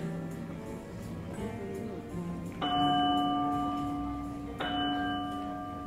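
A deep bell or chime is struck twice, about two seconds apart, and each stroke rings on and slowly fades. It is heard after a few soft musical notes.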